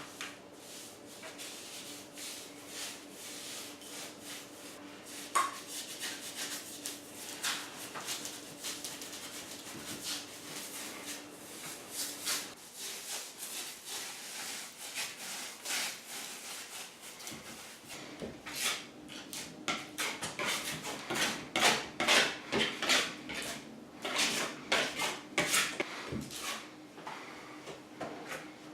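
Irregular scraping and rubbing strokes of a hand tool working a plaster and joint-compound patching mix, growing quicker and louder in the second half, over a faint steady hum.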